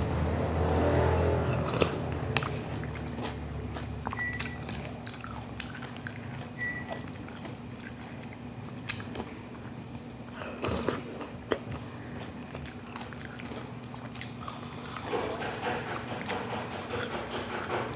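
Close-miked eating sounds of a person eating instant noodles with meatballs and egg: chewing and mouth sounds, loudest in the first couple of seconds, with scattered sharp clicks.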